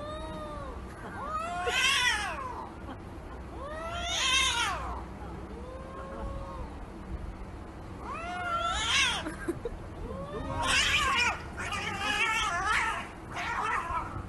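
Domestic cats yowling and caterwauling in a fight: a string of drawn-out wails that rise and fall in pitch, coming every couple of seconds, some soft and some loud, running together near the end.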